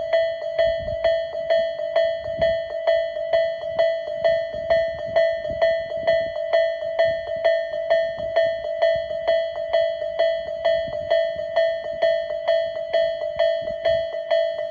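Japanese railway level-crossing warning bell ringing: an electronic clang striking a little over twice a second over a held ringing tone, the signal that a train is approaching the crossing.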